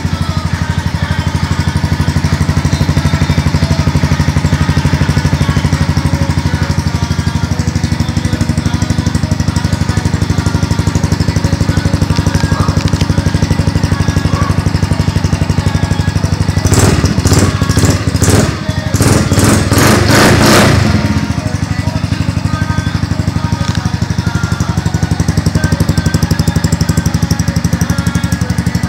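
Suzuki Burgman AN 125 scooter's single-cylinder four-stroke engine idling steadily through a Roncar Coyote TRS tri-oval aftermarket exhaust. About seventeen seconds in, a run of quick throttle blips lasts about four seconds before it settles back to idle.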